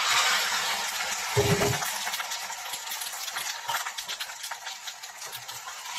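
Raw chicken pieces sizzling and crackling in hot oil in a frying pan just after going in, the sizzle easing off gradually. A brief low sound about a second and a half in.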